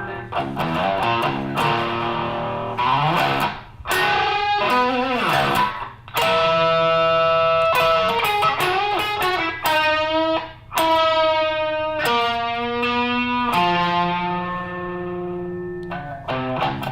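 Electric guitar played through a BBE Bohemian Treble Booster pedal with level and bias turned all the way up, giving a clean, very sharp, cutting tone. Single-note lead licks with bent notes about four seconds in and several long held notes later on.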